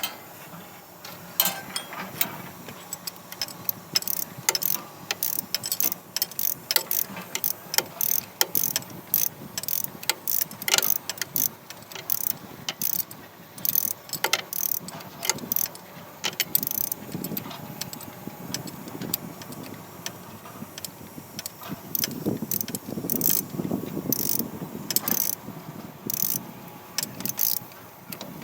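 Hand tools working on metal: a long run of irregular sharp clicks and clinks, with some duller low knocking between about 17 and 25 seconds in.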